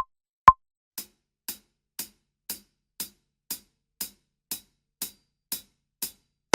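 Count-in ticks at an even two a second: two loud electronic metronome beeps, then from about a second in a steady run of quieter, thin closed hi-hat ticks at the same pace.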